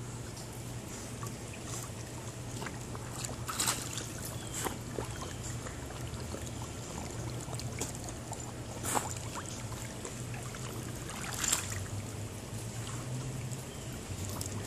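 A dog swimming in a pool, with soft water sloshing and trickling and a few brief splashes, over a steady low hum.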